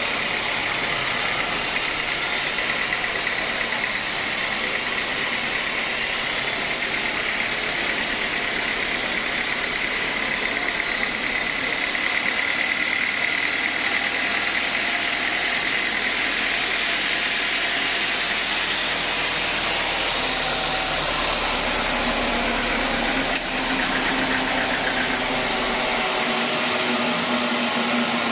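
Sawmill machinery running steadily under power, a dense mechanical noise with a high, steady whine from the saw. Over the last several seconds a lower hum joins in.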